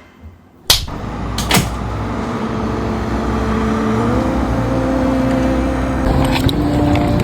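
Electric train pulling away, heard from on board. A sharp click and a knock come first, then a steady running noise with a motor tone that climbs in pitch in steps as the train gathers speed.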